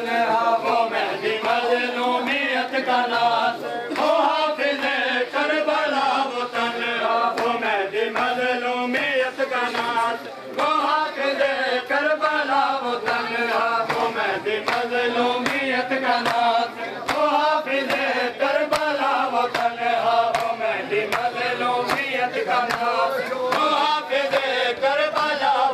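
Group of men chanting a Punjabi noha, a Shia mourning lament, together, over a steady beat of matam: open hands slapping on bare chests.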